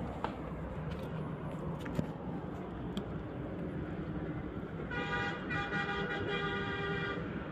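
A vehicle horn honks about five seconds in and holds for roughly two seconds, over a steady background hum, with a few faint clicks earlier on.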